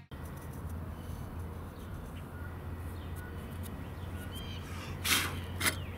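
Faint bird calls over a low steady hum, with two short hissy noises near the end.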